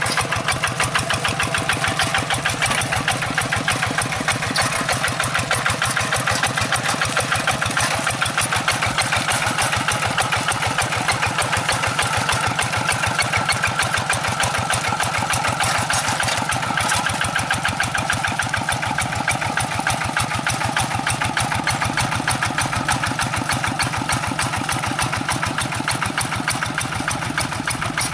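Hand tractor's Kubota RD85 single-cylinder diesel engine running steadily under load, a fast, even chugging, while its cage wheels work a flooded rice paddy.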